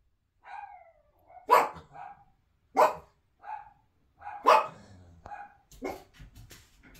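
A small dog barking: about four loud, sharp barks mixed with quieter yips, one of them falling in pitch at the start.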